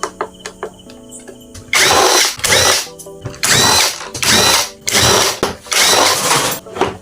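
Handheld power drill-driver running in short bursts, about five in a row, each with a whirring whine, as when screws are driven out. Soft clicks and faint music come before the first burst.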